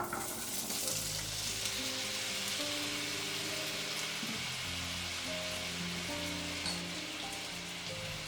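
Food sizzling in a hot frying pan, the sizzle starting suddenly as the food goes in and then running on steadily, over background music.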